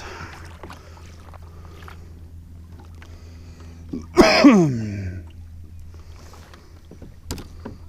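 A short wordless voice sound about four seconds in, falling steeply in pitch over about a second, over a steady low hum, with a couple of sharp clicks near the end.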